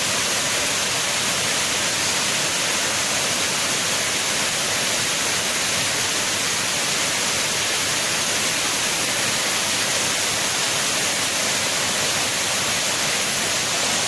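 Waterfall: water pouring over many stepped cascades makes a steady, even rush with no breaks or changes.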